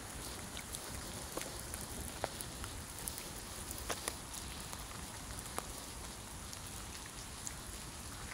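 Steady rain falling, with scattered single drops ticking sharply at irregular moments.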